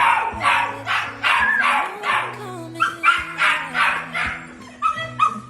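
A dog barking rapidly, short barks about three a second in quick runs, over background music.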